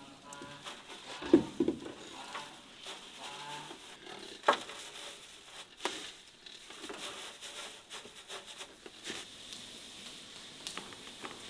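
Dry wood shavings scattered by hand from a metal bucket, rustling and pattering as they land on the floor of a smokehouse pit, with two sharper knocks about one and four and a half seconds in.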